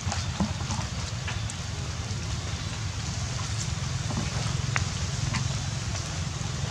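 Outdoor background noise: a steady low rumble and hiss, with a few faint scattered clicks.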